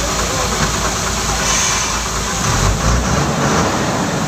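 Bus engine idling, heard from inside the bus as a steady low rumble, briefly louder about two and a half seconds in.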